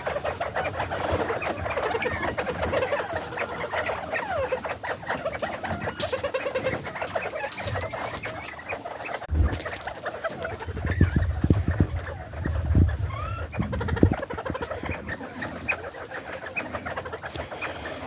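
A group of bobwhite quail keeps up many soft, quick chirps and chattering calls, their contented 'happy sound' while feeding. Between about 9 and 14 seconds in, a few dull low thumps stand out as the loudest sounds.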